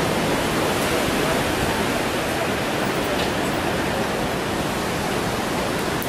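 Strong wind blowing across the microphone: a steady, dense rush of noise.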